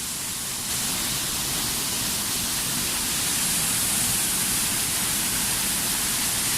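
Steady rushing of a waterfall, with a slight rise in level under a second in.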